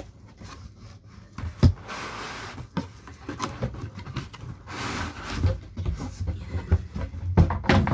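Packaging being handled while a fan heater is unboxed: two spells of cardboard and paper rustling, with a few sharp knocks, the loudest about a second and a half in and near the end.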